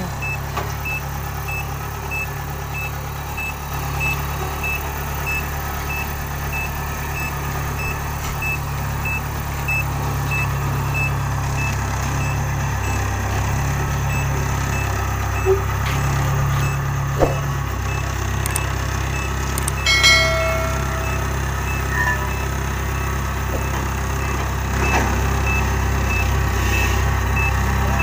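Kubota DC-70 Plus combine harvester's diesel engine running steadily as the tracked machine reverses down loading ramps, its reverse alarm beeping about twice a second for the first third and again near the end. A short metallic clank sounds about two-thirds of the way through.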